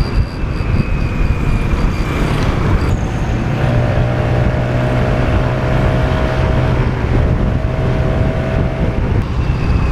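Motorcycle riding along the road: a steady low engine drone under wind and road noise, with a held higher tone from about three and a half to nine seconds in.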